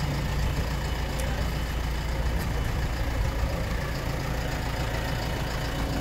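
Backhoe loader's diesel engine idling, a steady low hum.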